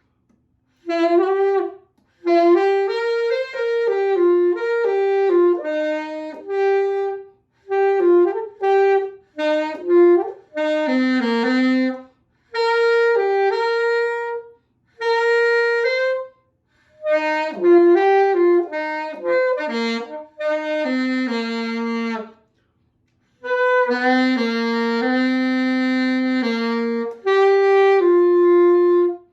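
Saxophone playing a slow melody alone, one note at a time, in short phrases broken by brief pauses for breath.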